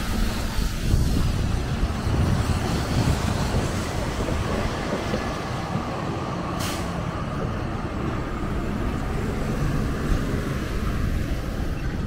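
Street traffic on wet pavement: an articulated city bus passing close by and moving off, with a steady low rumble of engine and tyres. A brief sharp hiss comes about halfway through.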